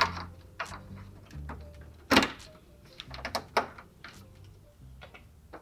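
Hard plastic clicks and knocks as small LED marker lights are pressed and snapped into the slots of a plastic truck grille, several light taps and one loud knock about two seconds in. Soft background music runs underneath.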